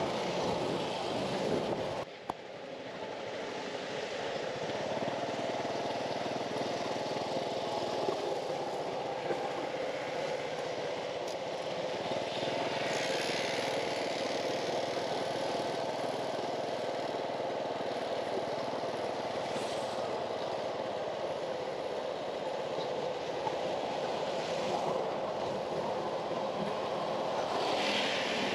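Small motor scooter engine running steadily while riding through street traffic, with wind and road noise. The sound drops out briefly about two seconds in.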